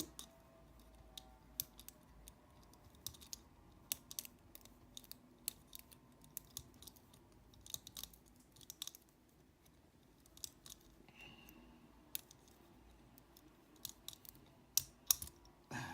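Faint, irregular metallic clicks and small scrapes of lever-lock picking tools working inside a 5-lever padlock, as the levers are lifted and set, with a few louder clicks near the end as the lock nears opening.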